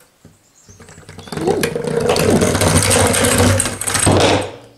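Small weight-driven wooden model car rolling and rattling across a fibreboard bench top on its wooden wheels, its string unwinding from the axle as the weight falls. The rattle starts about a second in and stops shortly before the end.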